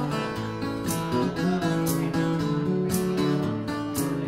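Acoustic guitar playing an instrumental break in a Hawaiian folk song, picked notes and strummed chords, with a bright percussive tick about once a second keeping the beat.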